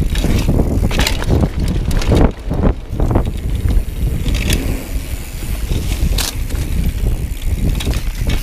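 Mountain bike rolling fast down a dry dirt singletrack: tyres rumbling over the ground, with frequent knocks and rattles from the bike over bumps, and wind buffeting the microphone.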